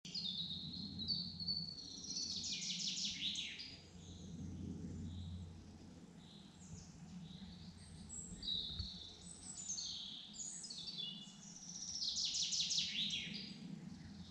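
Woodland birdsong: several birds singing and chirping, with two louder songs of quick repeated notes falling in pitch, about two seconds in and again near the end, over a low steady hum.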